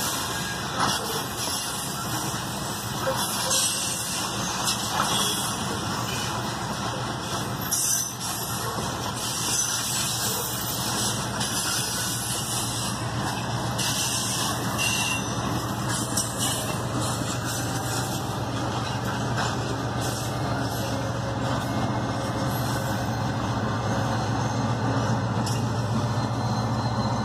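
Loaded grain hopper cars of a long freight train rolling past, with steady rail noise and irregular wheel clatter. Over the second half the low, steady drone of a diesel locomotive's engine grows louder as the train's rear Locotrol unit approaches.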